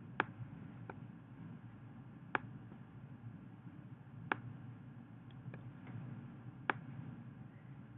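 Computer mouse clicking while a graph is resized and dragged on screen: single sharp clicks every second or two, with a few fainter clicks between, over a low steady room hum.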